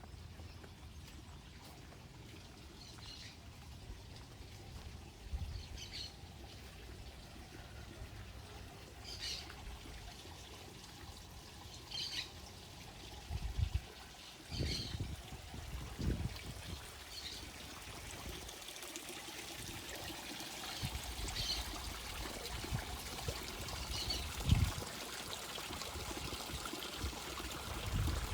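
Water trickling and pouring steadily into a pond, growing a little stronger later on. A bird gives a short high call every few seconds, and a few low thumps come through near the middle and again later.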